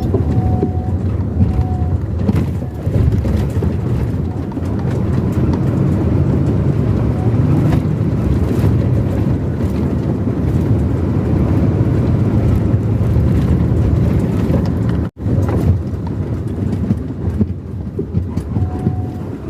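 Steady low rumble of road and engine noise from a moving vehicle at road speed, with a brief cut-out about fifteen seconds in.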